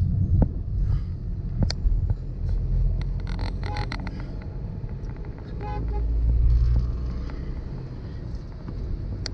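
Low, steady road and engine rumble of a vehicle driving on a highway, swelling around six seconds in. A vehicle horn honks about three and a half seconds in and briefly again near six seconds.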